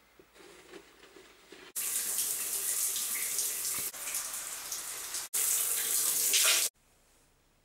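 Shower spraying water in a tiled bathroom, a loud even hiss that starts suddenly after a quiet opening, dips once, and cuts off abruptly near the end.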